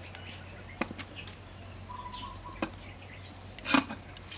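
A stainless-steel cooking pot being set on a wood fire and its lid handled: a few light clicks, then a louder metal knock about three-quarters of the way in. Birds chirp faintly in the background.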